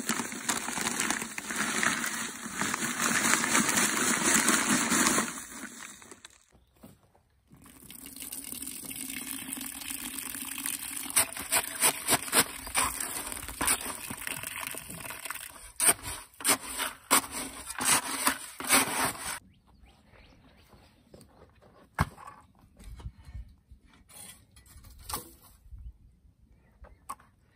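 Dry concrete mix pouring from a paper bag into a plastic bucket for about five seconds. After a short pause, water runs into the bucket while a shovel scrapes and stirs the mix, with many sharp scraping clicks; this stops a little past halfway, leaving only a few faint knocks.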